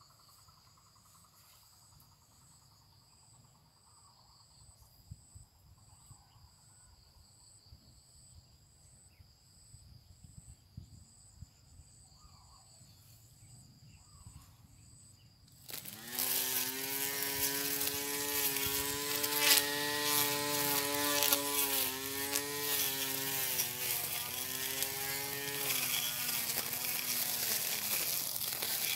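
Faint insects chirping with a steady high pulsing. About sixteen seconds in, a portable electric lawn mower's motor switches on suddenly and runs with a steady whine, its pitch sagging briefly several times as it takes the load of the grass.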